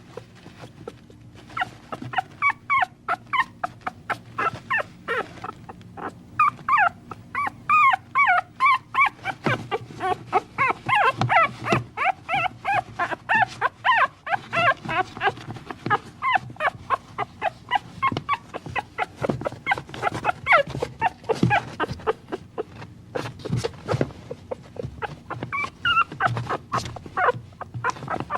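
Puppies whimpering and yipping in many short, high calls, several a second, continuing throughout.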